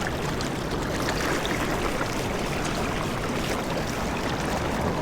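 Steady sound of river water flowing.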